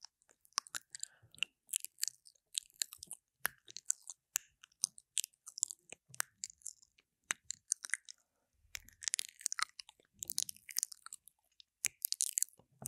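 Wet mouth sounds right against a binaural microphone's silicone ear: lips and tongue mouthing and kissing it in a run of sharp wet clicks and smacks. The clicks thicken into denser sticky crackles about nine seconds in and again near the end.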